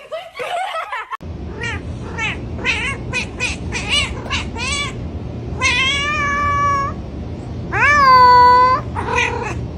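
Domestic cat meowing: a quick run of short meows, then two long, drawn-out meows held at a steady pitch and a last short one, over a steady low hum.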